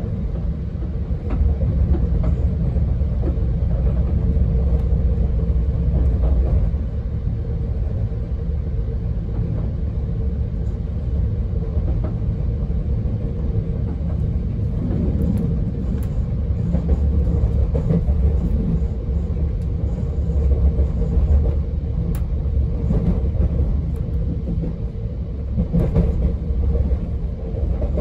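Moving passenger train heard from inside the carriage: a steady low rumble of the wheels on the rails with a constant hum, and a few short clicks in the second half.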